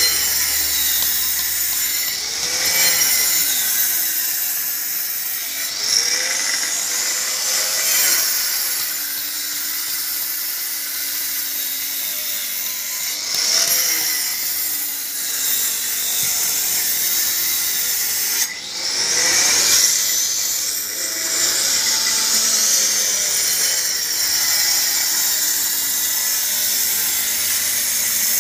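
Handheld electric angle grinder cutting sandstone: a continuous high whine and gritty hiss, its pitch bending down and back up again and again, with a brief drop about two-thirds of the way through.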